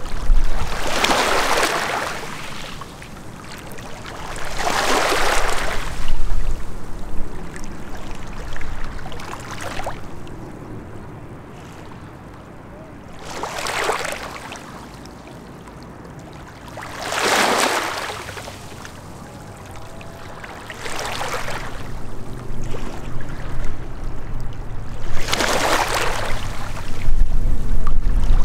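Small waves lapping on a rocky lake shore, each wash of water swelling and fading every three to four seconds. A low rumble sits beneath it near the start and end.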